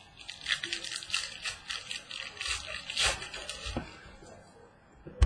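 Trading cards and their packaging being handled: a run of crinkling and rustling, with a couple of soft knocks about three seconds in and one sharp tap at the very end.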